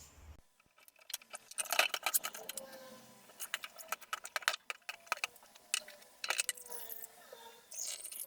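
An irregular run of small sharp clicks and clinks, like hard objects knocking together, denser in a couple of flurries.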